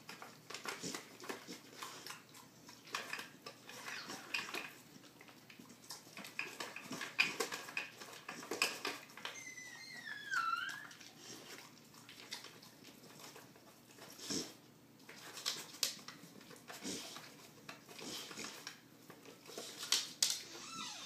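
A dog nosing and licking at a hard plastic treat-puzzle feeder, making irregular clicks and knocks as the plastic parts shift and rattle, with a brief falling squeak about ten seconds in.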